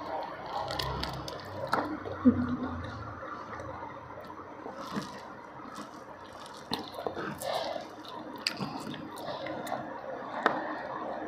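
Wet chewing and mouth sounds of someone eating fried chicken and rice by hand, with scattered small clicks and smacks. A sharper click-like sound comes about two seconds in.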